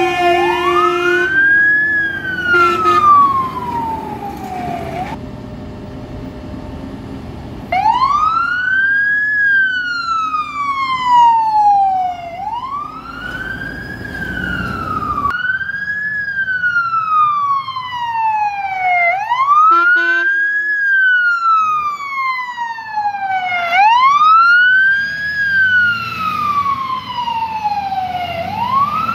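Renault Midlum fire engine's siren wailing over and over, each cycle rising quickly and then falling slowly, about every four to five seconds. A horn blast sounds near the start and briefly again about twenty seconds in.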